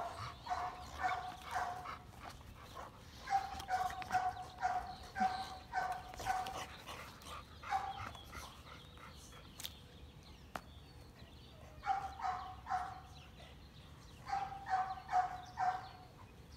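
A dog barking repeatedly in bouts of several barks, about two a second, with pauses of a few seconds between bouts.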